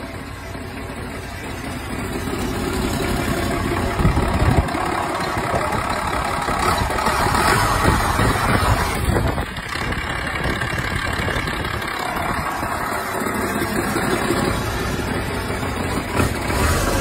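Used turbocharged diesel engine on a test stand running steadily. It grows louder over the first couple of seconds and has a brief louder burst about four seconds in.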